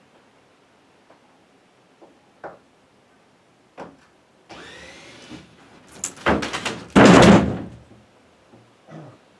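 Roof panel scraping and creaking as it slides loose, then a few knocks and a loud crash as it drops to the ground.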